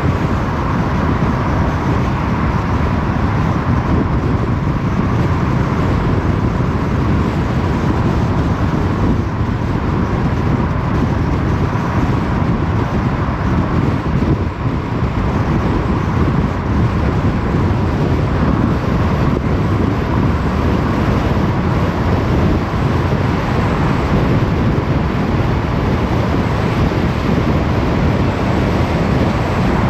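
Car driving at steady speed on an open road: continuous tyre and road noise with engine hum, a faint steady whine above it.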